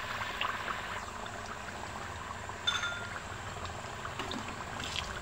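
Besan batter frying in ghee in an aluminium kadhai: a steady bubbling sizzle with small crackles, the ghee not yet fully hot. About two and a half seconds in, a metal spatula clinks once against the pan.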